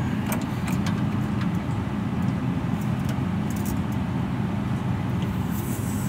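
Steady low machinery hum, with a few light clicks of pliers on the brass fittings of a refrigeration expansion valve.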